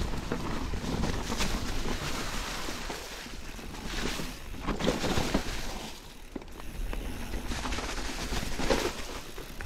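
Enduro mountain bike rolling down a leaf-covered forest trail: tyres rustling and crunching over dry leaves and dirt, with wind rushing over the action camera's microphone. It surges louder in rough bursts about halfway through and again near the end.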